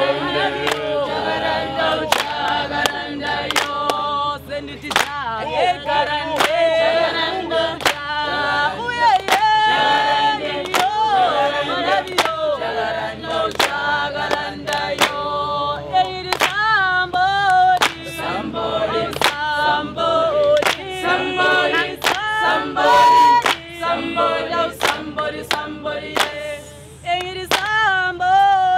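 A group of voices singing, with a steady sharp beat running under the song.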